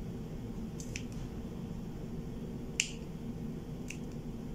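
Scissors snipping craft foam: three short sharp clicks, the loudest a little under three seconds in, over a steady low hum.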